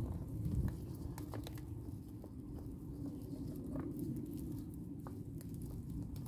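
A small stone being dry-fitted by hand into a gap in a stone wall: scattered light clicks and scrapes of stone against stone. A low steady rumble runs underneath.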